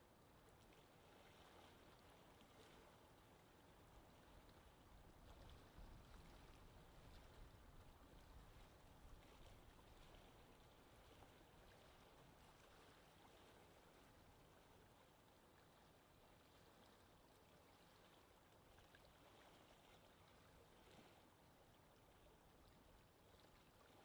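Faint, steady soft wind ambience: an even hiss with a low rumble that swells a little about a quarter of the way in.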